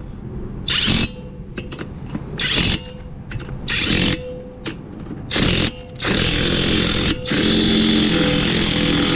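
Impact wrench running on the wheel's lug nuts: four short bursts, then a long run of hammering from about six seconds in. This is typical of nuts being run on and tightened at the end of a tire change.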